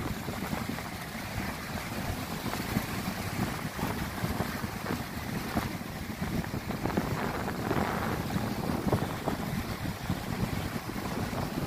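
Surf washing up the beach and breaking against boulders at the waterline, with wind buffeting the microphone.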